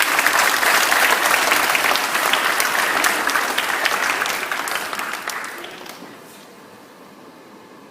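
Audience applauding: many hands clapping, strong for about four seconds, then dying away over the next two seconds to a faint hiss.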